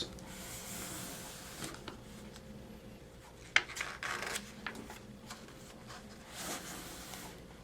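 Faint paper rustling as a picture book's pages are turned and handled, with a few light clicks in between.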